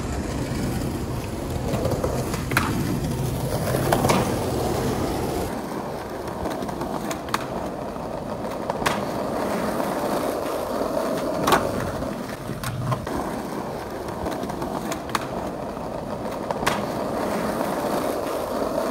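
Skateboard wheels rolling over rough street pavement, a continuous rumble, with several sharp clacks of the board striking the ground scattered through it.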